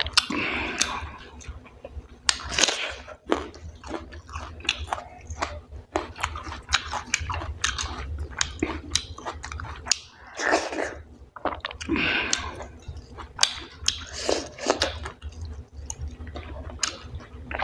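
Close-miked chewing and mouth sounds of a person eating wheat dhido with chicken curry: irregular wet smacks and clicks, with some crunchy bites.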